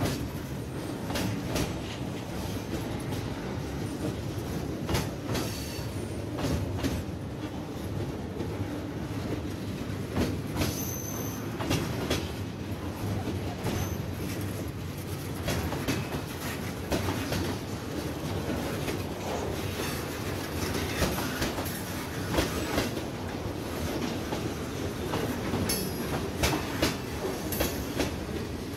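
Freight cars of a mixed freight train rolling past, a steady rumble of steel wheels on rail with frequent clicks over rail joints. A brief high wheel squeal comes about ten seconds in.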